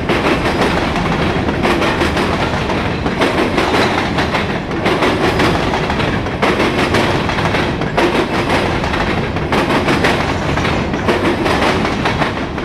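Freight train of grain hopper cars rolling past, the steel wheels clacking over the rail joints in regular groups about every second and a half.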